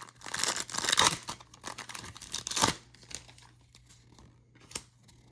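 A 1990 Pro Set trading-card pack's foil wrapper being torn open and crinkled by hand, with a loud rip lasting about two and a half seconds, then a few light crinkles and a single sharp click near the end.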